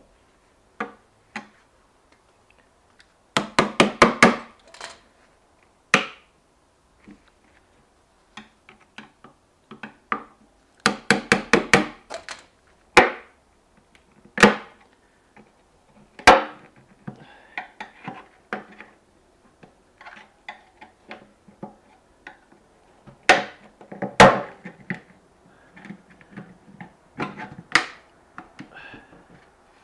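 Hammer-like knocking on washing-machine drum parts during disassembly. Two quick runs of about eight blows each, then single sharp knocks at irregular intervals.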